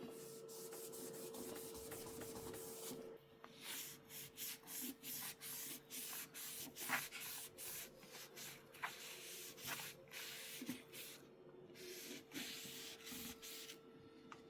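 A damp sponge with Cif cream cleaner scrubbing stainless steel on a dishwasher, in repeated back-and-forth rubbing strokes that start about three seconds in. Before that there is only a faint steady hum.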